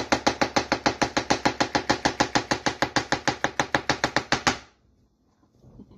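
Rapid knife chopping of mushrooms on a cutting board: an even run of quick strokes, about eight a second, stopping abruptly about four and a half seconds in.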